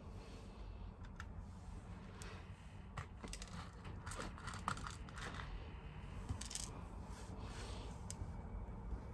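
Small plastic fuse beads being handled and set on a plastic pegboard by hand: scattered faint clicks and ticks with light rustling.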